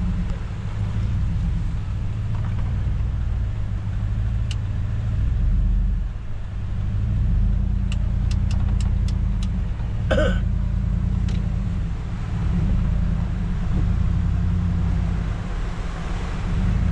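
Large truck's engine running as it drives, a steady low rumble that swells and eases, with a few faint ticks and a brief louder noise about ten seconds in.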